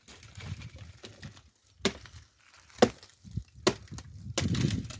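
Firewood being broken up: three sharp wooden cracks about a second apart, then a low rumble near the end.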